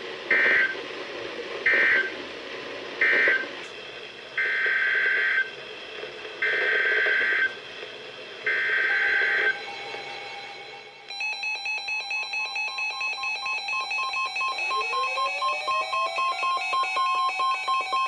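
NOAA Weather Radio alert data heard through weather radio speakers: three short screechy SAME data bursts, then three longer ones of about a second each. A couple of seconds later the weather radios sound their alert alarms, several tones beeping about four times a second, with a rising siren-like tone joining near the end.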